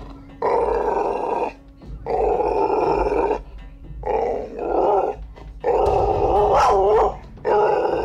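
Dog growling repeatedly: about six growls, each a second or so long, with short pauses for breath between them.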